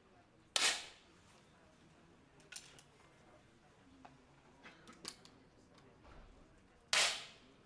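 Two 10 m air pistol shots about six seconds apart, each a sharp pop with a short ringing tail, with fainter clicks in between.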